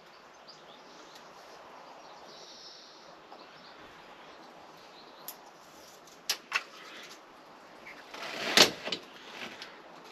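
Quiet handling noises of small parts being worked by hand: a few light clicks about five and six seconds in, then a louder click and short rustle about eight and a half seconds in, over a faint steady hiss.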